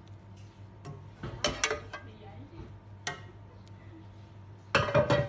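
Kitchen handling noises from a cooking pot and utensils: a few sharp clinks and knocks about a second and a half in, and a short louder clatter near the end, over a low steady hum.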